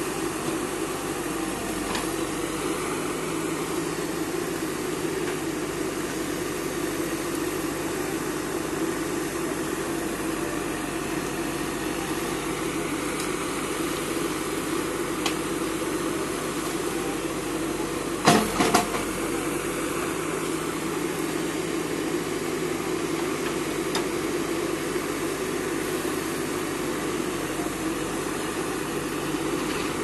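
Diesel engine of an Escorts backhoe loader running steadily as it digs and dumps soil, with a tractor's engine running alongside. A little past halfway comes a quick cluster of sharp clanks.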